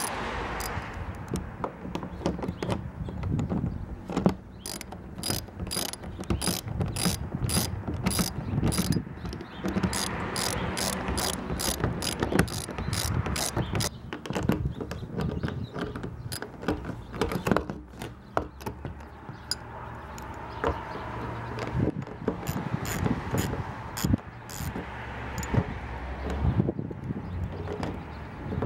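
Socket ratchet wrench clicking in runs of about two to three clicks a second as it tightens a 10 mm bolt and nut, with a pause partway through before the clicking resumes.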